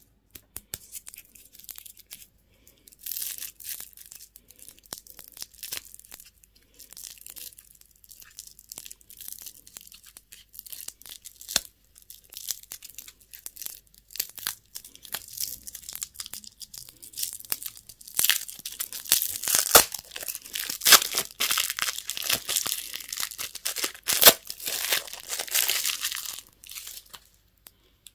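Candy wrapping being torn open and crinkled by hand: irregular crackling and ripping of thin plastic or foil, growing louder and busier in the second half and stopping just before the end.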